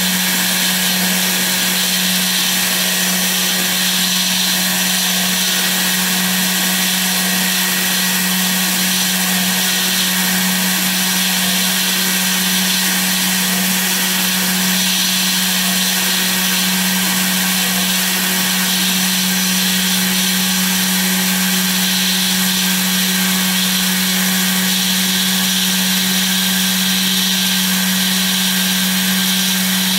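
Small CNC router spindle running steadily while its end mill cuts into a foam board: a constant hum under a high hiss.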